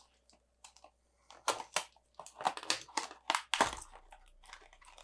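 Small cardboard toy box being slit open with a knife and handled: a quick run of clicks, scrapes and crinkles, with a low thump about three and a half seconds in.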